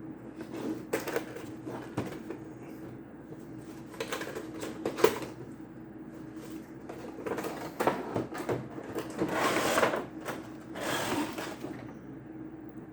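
Cardboard figure box being opened by hand: scattered knocks and clicks from handling the box and its flaps, with several longer rustling, scraping stretches of cardboard and packaging, the loudest about ten seconds in.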